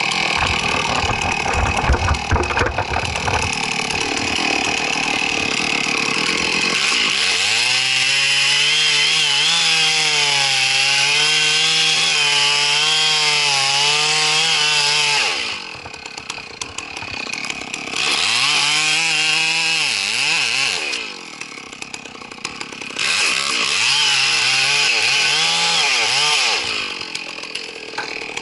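Chainsaw cutting at full throttle, its pitch wavering under load for several seconds, then dropping back and revved up again twice in shorter runs. Low knocks and rumble in the first few seconds.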